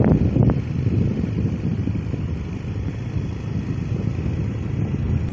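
Motorcycle running along at road speed, a low, unsteady rumble of engine and wind buffeting the phone's microphone, with a couple of brief knocks near the start.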